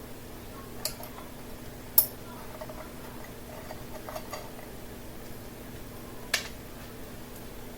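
A few sharp clicks and light taps of small parts being handled on a workbench. The loudest is about two seconds in, with another near the end, over a faint steady hum.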